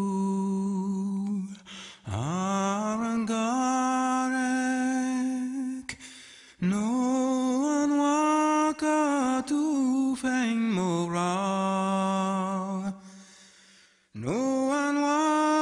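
Soundtrack song: a single voice singing, wordless or humming, in long held notes that slide up into pitch. The phrases are a few seconds long, with short breaks between them.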